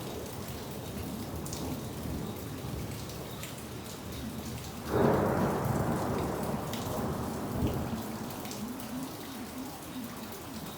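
Steady rain falling, with scattered sharp drop ticks. About five seconds in a thunderclap breaks suddenly and rolls away over the next few seconds.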